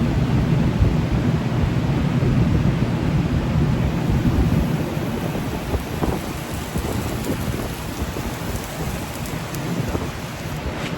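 Gas forge burner running, a steady rumbling roar with hiss, easing slightly in level after about five seconds.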